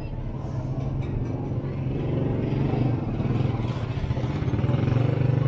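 A motor vehicle's engine running close by with a steady low hum, getting louder in the second half, over general street noise.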